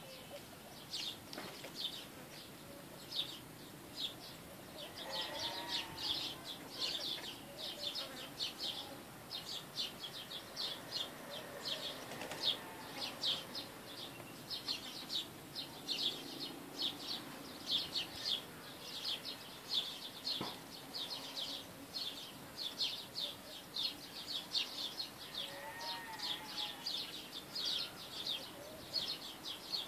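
Birds chirping in rapid high chirps that keep on without a break, with a few lower, arching calls now and then.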